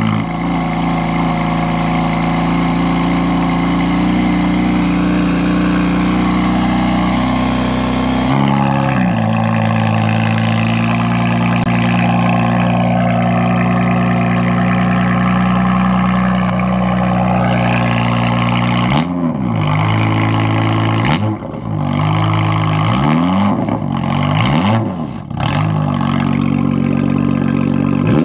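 BMW M4 F82's S55 twin-turbo straight-six, with an Active Autowerke equal-length exhaust, on a cold start. It holds a high cold idle that drops to a lower, steady idle about eight seconds in. From about nineteen seconds it is given a series of short throttle blips.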